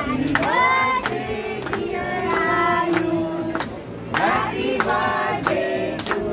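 A group of adults and children singing a birthday song together while clapping along in time.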